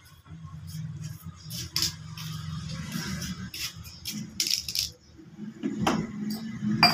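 Kitchenware being handled and set down on a hard floor: a series of clinks, clicks and rattles from plastic containers, a plastic colander and a steel bowl, over a low steady hum.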